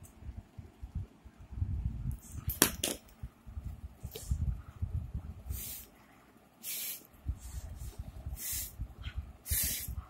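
About six short puffs of breath blown through a straw onto wet paint on paper, each a brief airy hiss, to spread the paint drops into streaks (blow painting). A low rumble of the book being handled and a single click come in between.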